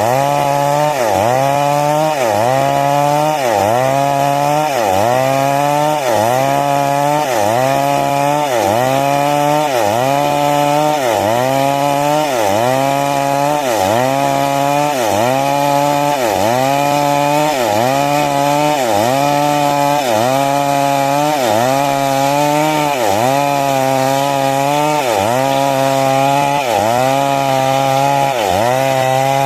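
Chainsaw (a 382) cutting wood under load. Its engine pitch sags as the chain bites and climbs back again, about once a second, in a steady rhythm of cutting strokes.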